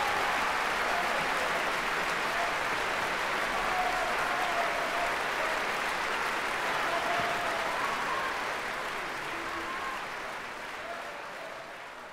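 Large theatre audience applauding steadily, the clapping fading out near the end.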